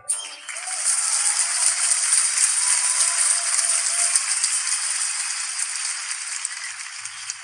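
Concert audience applauding, breaking out suddenly as the song ends and slowly tapering off.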